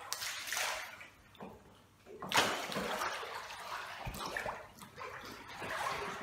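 Water splashing and sloshing around a swimming dog as it paddles, in uneven surges, with a sharper splash about two and a half seconds in.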